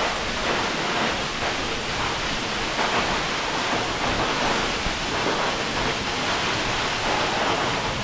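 Tall waterfall plunging down a rock cliff: a steady, even rush of falling water.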